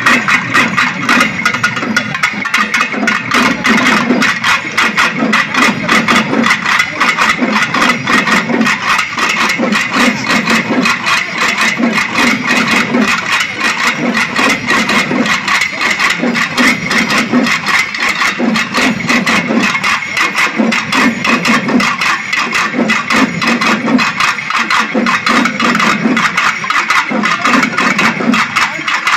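Massed pambai drums, the Tamil folk pair of cylindrical drums struck with sticks, played together by a large troupe in a fast, dense, unbroken rhythm. A deeper beat swells about once a second under the rapid strokes.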